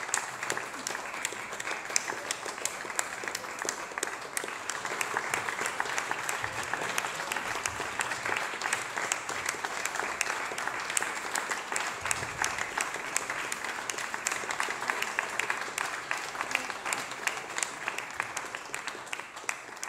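Audience applauding, many people clapping densely and without a break.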